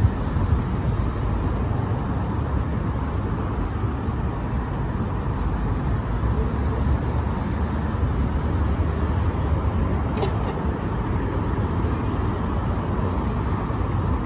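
Steady city road traffic: cars running along the embankment road as a continuous low rumble, with no single vehicle standing out.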